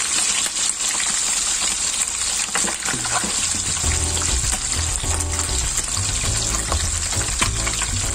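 Whole chicken frying in hot oil in a wok: a steady crackling sizzle of bubbling oil. Background music plays under it from about three seconds in.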